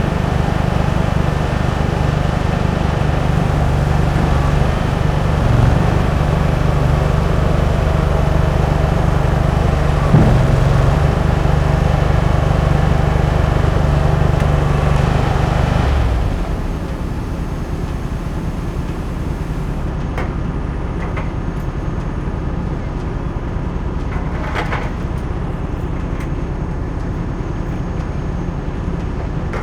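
Delivery truck engine running with a steady low hum, a single sharp knock about a third of the way in. About halfway through the hum drops away, leaving a quieter low rumble with a few faint clicks.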